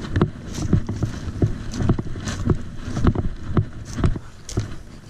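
Footsteps on a rocky riverbank: irregular dull thumps about two a second, with light scuffs between them.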